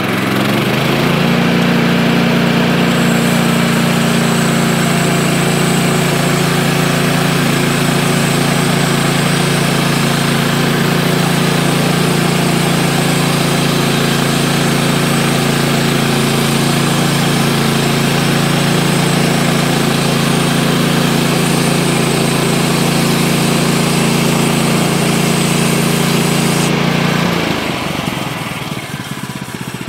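Woodland Mills HM130 Max portable bandsaw mill running at full throttle while its band blade saws a slab off a small log on the first cut, a steady engine sound with the blade cutting. Near the end the engine drops back as the blade clears the log and the cut finishes.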